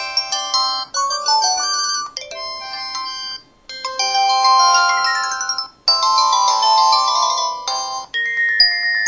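LG-KP8500 mobile phone playing its built-in ringtone and effect sounds: a run of short electronic chime melodies, one after another, each a second or two long.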